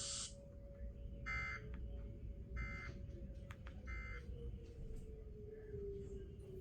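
Emergency Alert System end-of-message data bursts: three short, identical raspy digital buzzes about 1.3 seconds apart, closing a tornado warning broadcast. A faint steady tone sits underneath and drifts slowly lower in pitch.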